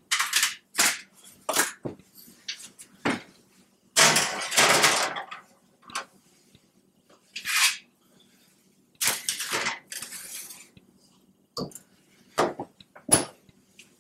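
Metal cookie sheets clanking and scraping as they are put into an oven: a scattered series of sharp knocks and clanks, with two longer scraping stretches, one about four seconds in and one about nine seconds in.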